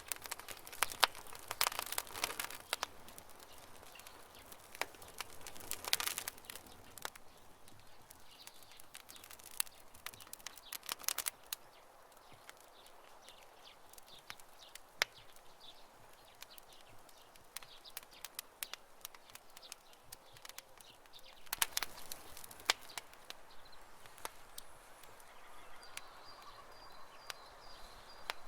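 Wood campfire crackling, with irregular sharp snaps and pops that come in clusters between quieter stretches. A faint steady high tone comes in near the end.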